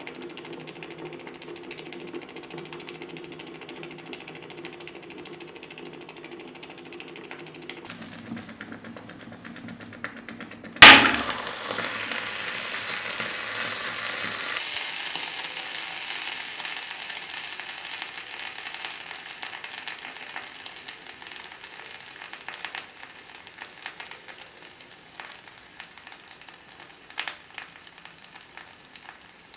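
Steady rapid clicking for the first several seconds, then about eleven seconds in a sudden loud burst of hissing as the red-hot metal ball meets the material, settling into a sizzle that slowly fades.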